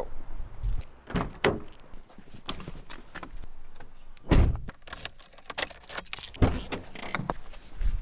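Getting into a car: keys jangling and small clicks and rattles, with a heavy car door thump shut about four seconds in and another low thump about two seconds later.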